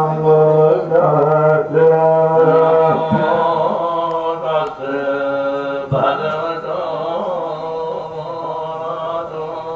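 Buddhist pirith chanting: voices reciting Pali protective verses in a steady, droning chant, with a low held tone underneath and the sung pitches moving in long phrases.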